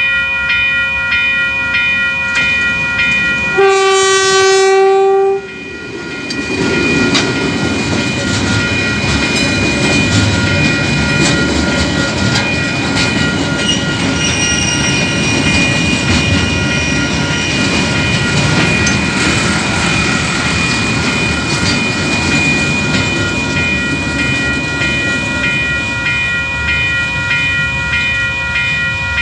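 Level crossing warning bells ringing in a steady repeating pattern throughout. About four seconds in, the diesel freight locomotive sounds one long horn blast, then container wagons roll past with a rumble and a stream of wheel clicks over the rails, while the bells ring on.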